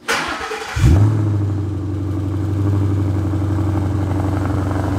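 Twin-turbo Ford Coyote 5.0 V8 in a Mustang GT starting up: it catches just before a second in with a brief flare, then settles into a steady fast start-up idle that has yet to drop down.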